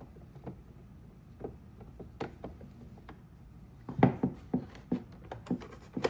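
Plastic parts of a Roomba 960 robot vacuum being handled during disassembly: scattered light clicks, then a quick run of clattering knocks about two-thirds of the way through.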